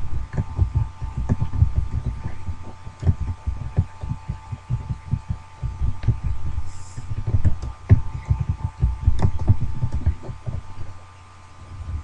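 Dense, irregular low thumping and rumbling, with a faint steady high whine underneath.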